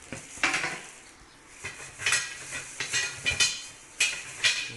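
Stainless steel dish-rack parts clinking and knocking against each other as they are handled: a series of about eight sharp metallic clinks, each with a brief ring.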